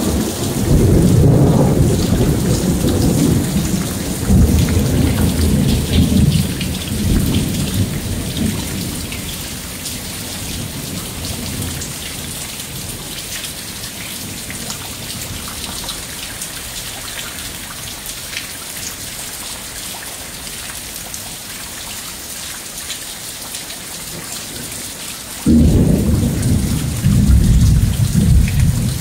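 Thunder rolls in waves over steady heavy rain for the first several seconds, then dies away, leaving only the rain. Near the end a second thunderclap breaks in suddenly and rumbles on.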